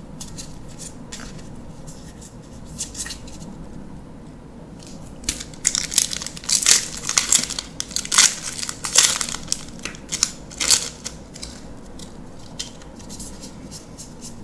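Plastic wrapper of a Magic: The Gathering booster pack being torn open and crinkled in the hands, a dense run of sharp crackles from about five to eleven seconds in. Softer rustling of cards and wrapper handling before and after.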